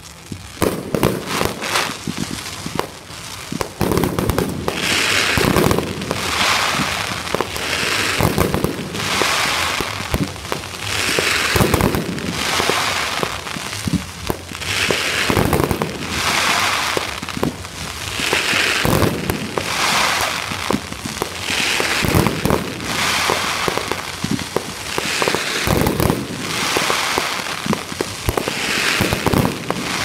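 Aerial fireworks going off in quick succession: a dense run of launch thumps and bangs, with a crackling swell about every two seconds.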